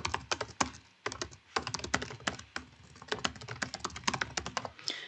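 Typing on a computer keyboard: quick, irregular key clicks as a short message is typed, with a brief pause about a second in.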